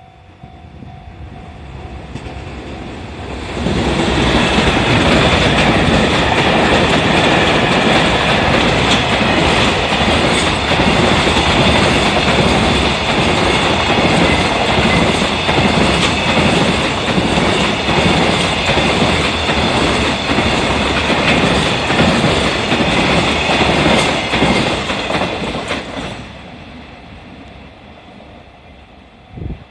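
Freight train hauled by an EF210 electric locomotive passing through a level crossing. The rumble builds over the first few seconds. The long string of wagons then goes by with a steady clickety-clack of wheels over rail joints for about twenty seconds, and the sound fades quickly near the end. A level-crossing alarm bell rings underneath.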